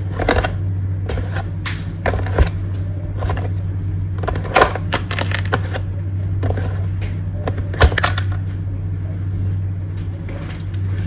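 Box of brownie mix tapped, handled and crinkled close to the microphone as an ASMR 'tingle': irregular sharp taps and rustles, the loudest near the middle and about eight seconds in, over a steady low hum.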